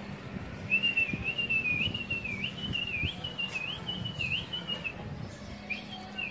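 A person whistling one long warbling whistle, its pitch dipping and rising over and over, then a shorter whistle near the end. This is a pigeon fancier whistling to a flock in flight.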